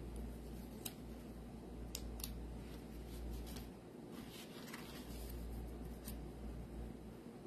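Faint handling sounds of small paper card pieces and glue dots: a few scattered sharp clicks and light ticks over a low steady hum.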